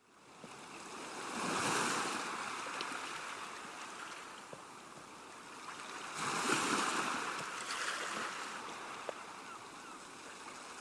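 Waves washing in: a rushing noise that swells twice, about five seconds apart, and eases back between.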